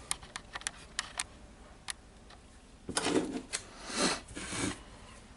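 Small parts and wires handled on a workbench: a quick run of light sharp clicks in the first two seconds, then rustling scrapes about three to four and a half seconds in.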